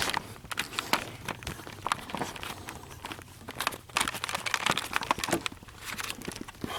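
Irregular rustling, scraping and clicking of hands working with twine and a pump tube, over the faint steady hum of a running sump pump motor.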